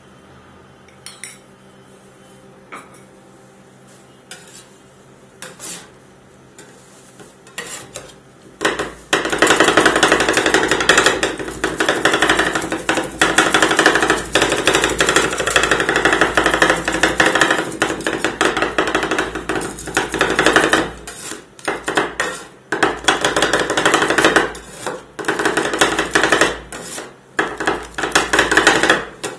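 Steel ice cream scrapers chopping apple and ice cream base on a frozen steel ice pan. A few scattered taps at first, then from about a third of the way in a fast, continuous metal-on-metal clatter of the blades striking and scraping the plate, broken by short pauses.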